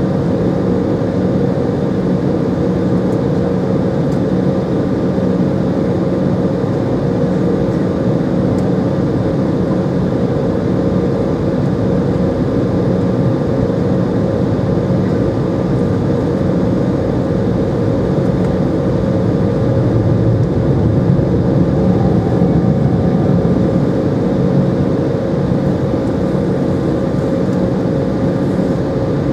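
Steady cabin noise inside an Embraer 190 at ground idle: its GE CF34-10E turbofan engines hum evenly with a few held tones. The hum swells slightly about two-thirds of the way through.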